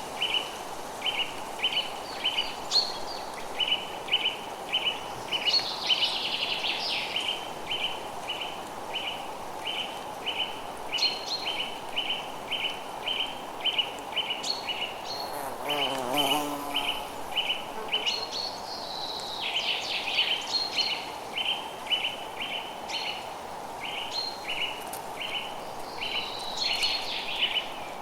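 Forest birds calling: one short chirp repeated steadily about three times a second, with other birds' brief calls and quick trills over it now and then. A steady hiss of background noise lies underneath.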